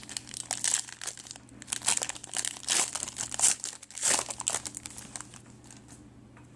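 Trading card pack wrapper crinkling as it is torn open and handled, a dense run of crackles that dies away about five and a half seconds in.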